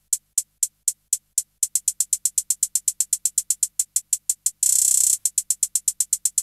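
Closed hi-hat sample on a Native Instruments Maschine+, retriggered by note repeat as a train of crisp ticks. The rate steps up from about four a second to about six. Past the middle it blurs for half a second into a fast buzz, then settles at about eight a second.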